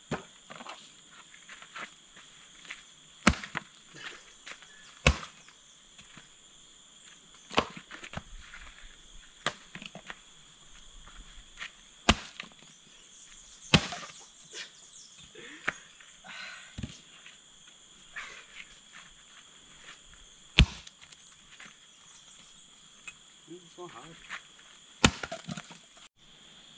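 An axe chopping firewood: irregular sharp strikes about every couple of seconds, with wood cracking and splintering apart, over a steady insect drone.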